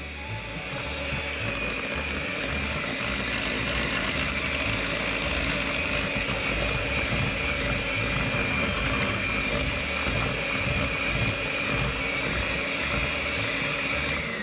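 Electric hand mixer running steadily, its beaters churning thick cake batter in a glass bowl with a constant motor whine. The whine drops away as the mixer is switched off at the very end.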